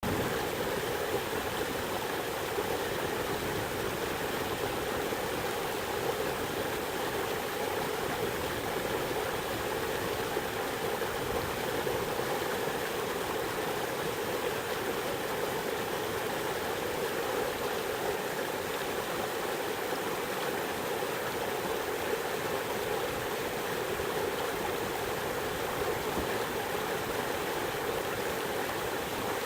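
A fast river swollen with spring snowmelt rushing steadily over rocks.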